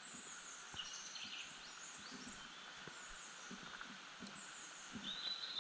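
Several small birds singing and chirping in a spring forest, short high calls throughout, with a steady trill starting about five seconds in.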